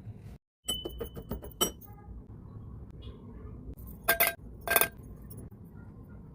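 Kitchen utensils clinking against metal cookware: a quick run of clicks, one ringing briefly, followed about three seconds later by two short, louder scraping bursts.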